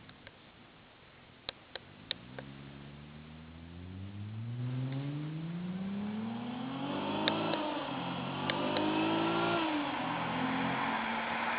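Mercedes C230 V6 with a resonator-deleted custom exhaust accelerating hard, its exhaust note rising in pitch and growing louder. The pitch drops about seven seconds in, climbs again and drops sharply near the end. A few sharp clicks come about a second and a half in.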